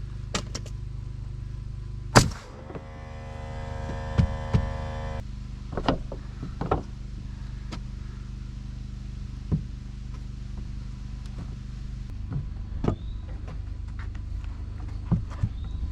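Hammer blows driving nails into rough-sawn poplar siding boards, irregularly spaced single strikes with the hardest about two seconds in, followed by a ringing tone for a few seconds. A steady low hum runs underneath.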